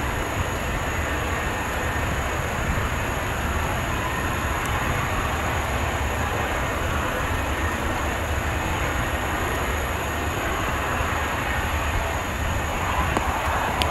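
Boeing 747-245F freighter's engines running at taxi power as it rolls along: a steady, unbroken rumble.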